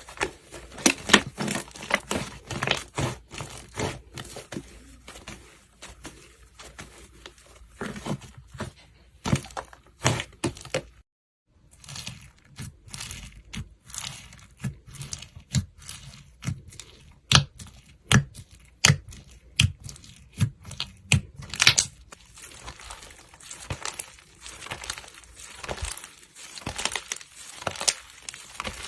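Slime being squished and pulled in the hands, giving many irregular crackling, popping clicks. A brief gap of silence about eleven seconds in.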